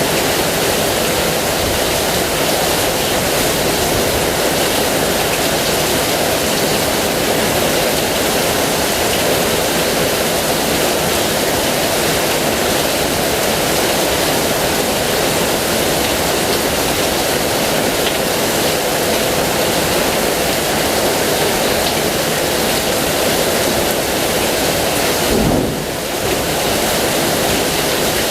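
Heavy rain falling steadily, a dense, even hiss with no let-up, briefly dipping in loudness near the end.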